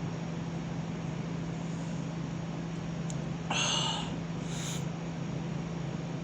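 Two short, breathy rushes of air about half a second apart, the first louder, about three and a half seconds in: a person breathing hard through the nose or mouth while holding down a burp. A steady low hum runs underneath.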